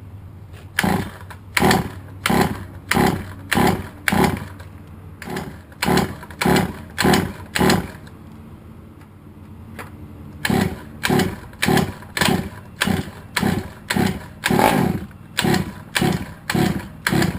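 Baja 5B's 23cc two-stroke engine being cranked over again and again without firing, a hard-starting, no-start engine. It runs as a quick, even chug of about one and a half strokes a second, stops for a couple of seconds, then starts again.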